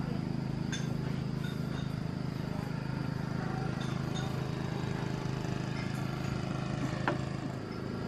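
A steady engine hum that drops slightly in pitch near the end, with a few light clicks over it.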